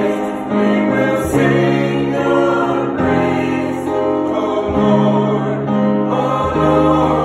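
Mixed church choir of women and men singing in harmony, holding long chords that shift every second or two.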